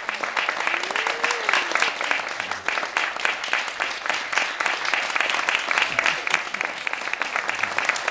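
Audience applauding, many hands clapping densely and steadily, with a short rising-and-falling cheer from a voice about a second in.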